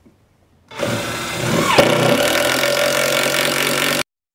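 Makita BTD142 18-volt cordless impact driver hammering a hex bolt into a double 2x8 plank. It is loud and steady for about three seconds, starting about a second in and stopping abruptly.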